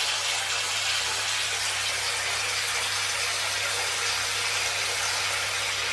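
Bath tap running a steady stream of water into a bathtub as the bath is filled, with a low steady hum beneath it.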